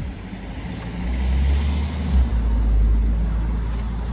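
Wind gusting over the microphone: a low buffeting rumble that swells about a second in and eases off near the end.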